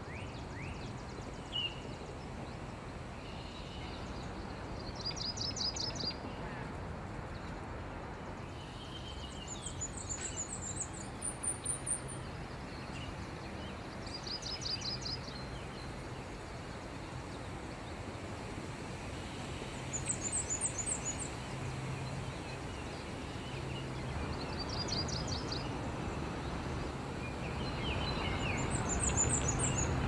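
Warblers singing: short, high, thin series of rapidly repeated notes every few seconds, some pitched higher than others, over a steady low background rumble.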